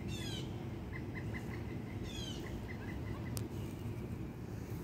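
A bird calling twice, each call a quick descending run of high notes, with a row of short, evenly spaced high peeps at about five a second in between, over a steady low hum.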